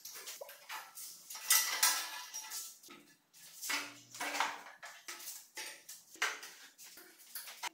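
Irregular metallic clinks and clanks of hand tools and bolts against a steel motorcycle frame as parts are unbolted and lifted off.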